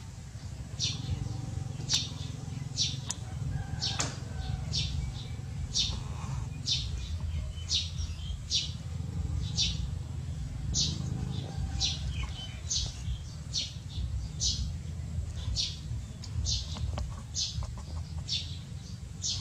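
A bird chirping over and over, short high notes about once a second, over a steady low rumble.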